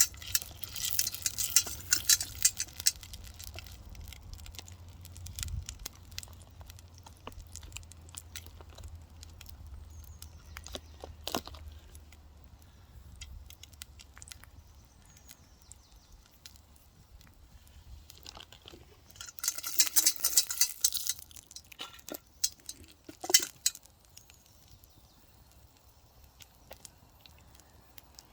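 Scattered small clicks and crackles of cooking over a campfire, with short rattling bursts of a utensil stirring food in a frying pan near the start and again about two-thirds of the way through.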